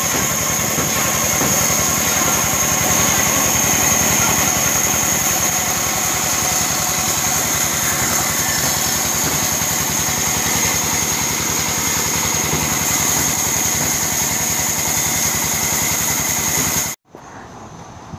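Band saw running steadily, its blade cutting through timber planks, with a high whine over the motor. The sound stops abruptly near the end.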